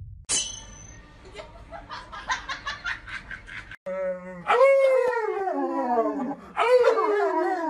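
Husky-type dog howling in long, loud calls that slide down in pitch, starting about four seconds in, with a man howling along in a lower voice.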